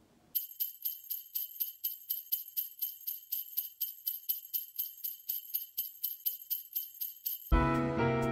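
Sleigh bells jingling in a steady rhythm, about four shakes a second. About a second before the end, background music comes in.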